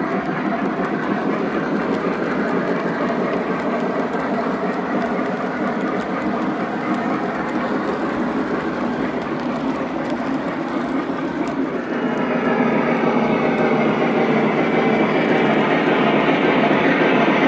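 Lionel O-gauge model train cars rolling past on the track, a steady rumble and clatter of metal wheels. About twelve seconds in the sound steps up louder and brighter.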